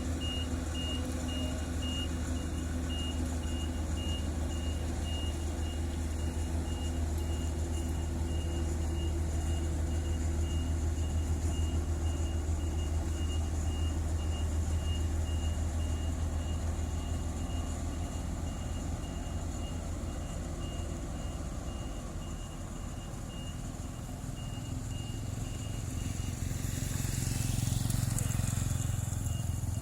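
Heavy diesel engines of asphalt paving machinery running steadily, with a reversing alarm beeping at an even rate throughout. Near the end a louder rushing noise swells and fades.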